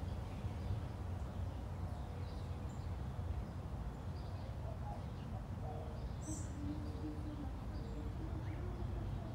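Outdoor ambience: a steady low rumble with scattered short bird chirps, the clearest about six seconds in.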